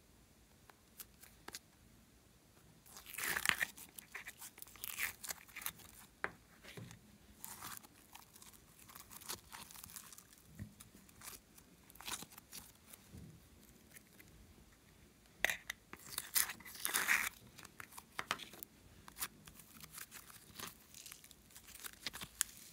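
Glossy slime being stretched and folded by hand, giving irregular sticky crackles and small pops. Two louder spells of dense crackling come about three seconds in and again about sixteen seconds in.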